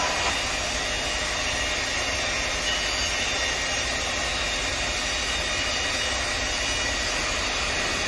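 Steady running of workshop machinery: an even, fan-like rushing noise with a faint high whine.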